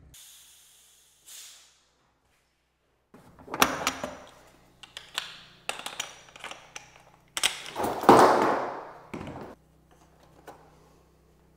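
Irregular clicks, knocks and clatter of hand tools and fittings being handled in a hard plastic tool box, with the loudest bursts about four and eight seconds in.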